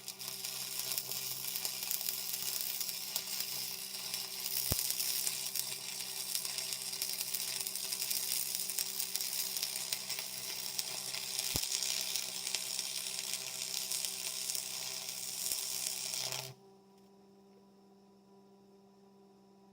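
Stick-welding arc from a Lincoln AC-225 buzz box burning a 7018 rod on a cover pass: a steady, dense crackling sizzle that cuts off suddenly near the end as the arc is broken. A steady electrical hum runs underneath.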